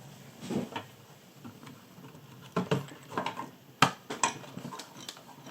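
Scattered clicks, taps and scrapes of computer hardware being handled as fan and power connectors are pushed onto the motherboard, with one sharper click a little before four seconds in.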